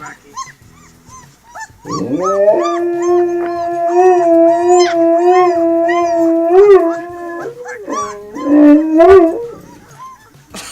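Dog howling: one long howl that rises at the start and then holds steady for about five seconds, followed by a shorter second howl. Faint high squeaks and yips are heard throughout.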